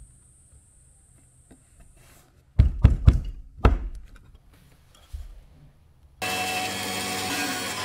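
About four heavy knocks on a wooden workbench, with a softer one a little later, as a glued paper lure template is pressed onto a wood block. About six seconds in, the steady noise of a band saw running starts abruptly.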